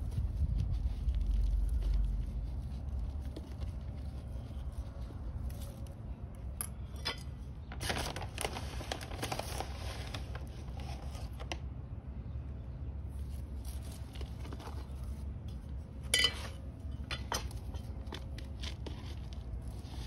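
Hands mixing fertilizer into potting soil in plastic pots: scattered scraping and crunching of soil and crinkling of plastic, busiest about eight to eleven seconds in, with a few sharp clicks later on, over a steady low rumble.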